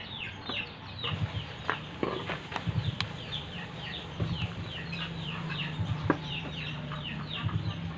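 Birds chirping over and over, short falling chirps several times a second, with a few sharp metallic clicks and knocks from the cast pump housing being handled, the loudest about six seconds in.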